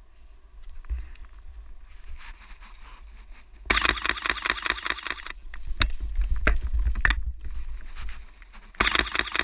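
Camera shutter firing in rapid bursts of about ten frames a second: one burst of a second and a half a little under four seconds in, a few single clicks after it, and another burst starting near the end. Under it runs a low rumble.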